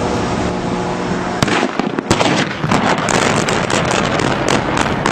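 A rapid string of sharp bangs from demolition explosive charges firing in sequence, starting about a second and a half in, over a steady rushing noise.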